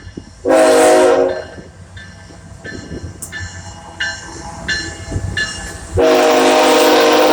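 Norfolk Southern ET44AC locomotive sounding its air horn: a short loud chord blast, then a second, longer blast near the end. Between the blasts the locomotive bell rings faintly about every half second over the low rumble of the passing train.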